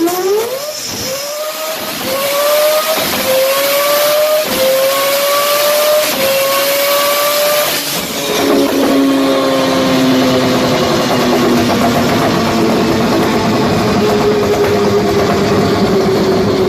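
Mazda RX-7 rotary engine accelerating hard through several quick upshifts, the pitch climbing and dropping at each change, then holding a steady high note that slowly falls away over the second half.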